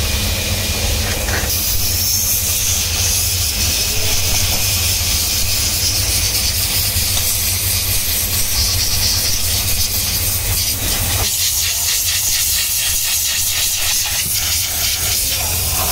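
Handheld steam cleaner nozzle hissing steadily as it sprays jets of steam inside a car's cabin, with a low steady hum underneath. About eleven seconds in, the hiss thins and turns fluttery.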